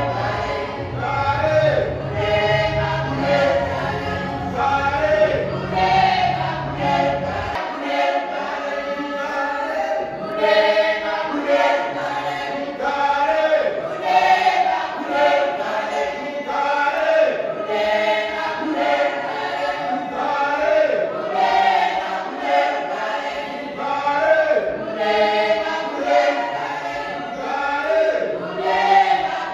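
Youth choir singing unaccompanied in a steady, rhythmic pulse, many voices together. A low hum sits underneath and stops about seven seconds in.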